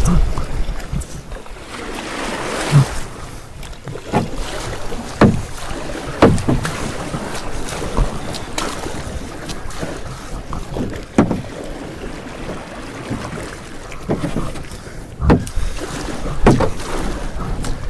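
Aluminium-shafted canoe paddles stroking through water: a splash or swish with each pull, roughly one every second or so at an uneven pace, over light wind noise.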